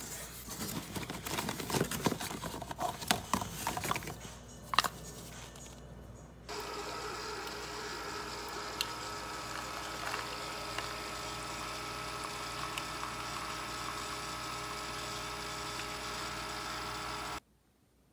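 Plastic K-cup coffee pods clattering and rustling in a cardboard box, then a Keurig coffee maker brewing with a steady pump hum that cuts off suddenly near the end.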